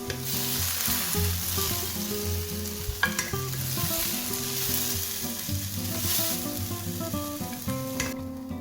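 Food frying in hot oil in a pan: a steady sizzle that cuts off suddenly near the end, with one sharp knock about three seconds in.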